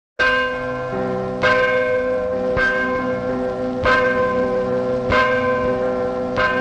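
The Shintoho church bell sound effect: a church bell tolling, six strikes about one every 1.2 seconds, each ringing on into the next. A sudden split-second cut to silence comes right at the start.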